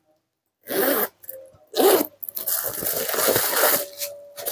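Metal zipper on a leather handbag being pulled: two short zips about one and two seconds in, then a longer run of zipping from about two to four seconds in.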